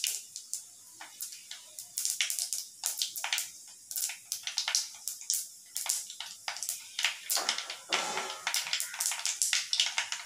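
Mustard, cumin and fenugreek seeds crackling and popping irregularly in hot oil in a clay pot, with a denser patch of sizzling about eight seconds in.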